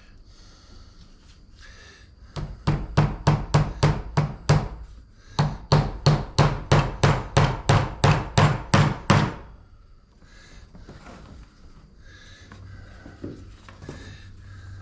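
A hammer tapping nails into a wooden beehive frame: two quick runs of sharp strikes, about four or five a second, with a short pause between them.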